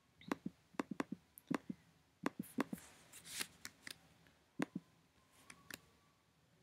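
Computer mouse clicking: about eighteen sharp clicks over five seconds, many in quick pairs, with a short rustle about three and a half seconds in.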